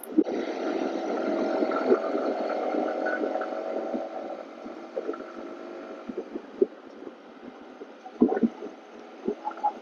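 Muffled riding noise of a Yamaha R15M sport bike on the move, heard through a clip-on mic: wind rumble with the drone of its 155 cc single-cylinder engine, louder for the first four seconds or so and then easing off. Scattered short knocks and bumps from the mic run through it.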